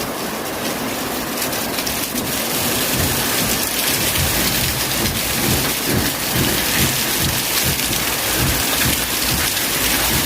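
Heavy rain pouring down steadily, growing a little louder from about three seconds in, with a low irregular rumble underneath.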